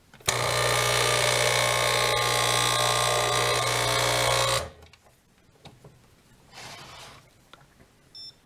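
Saeco Incanto S-Class Sirius espresso machine's pump running with a steady buzzing hum for about four seconds, then cutting off; no water comes from the hot-water spout. Near the end, a short electronic beep as a button on the machine's display is pressed.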